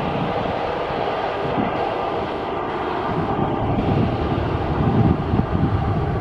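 Boeing 737 twin jet engines at takeoff thrust as the airliner lifts off and climbs out: a steady jet noise with a rough, crackling low rumble, swelling a little about four seconds in as the aircraft climbs toward the listener.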